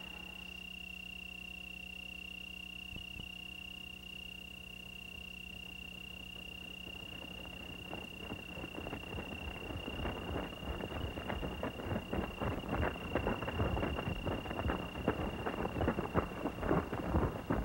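Crickets trilling in one steady high tone over a low hum. About eight seconds in, irregular crackling joins and grows louder and denser toward the end.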